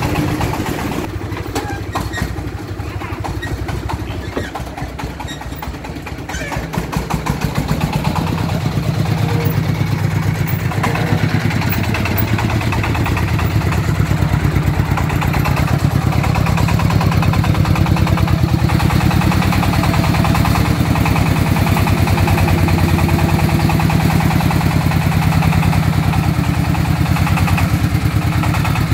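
Single-cylinder diesel engine of a homemade three-wheeled công nông truck loaded with sand, chugging steadily as it is driven and manoeuvred. It gets louder about seven seconds in and stays there.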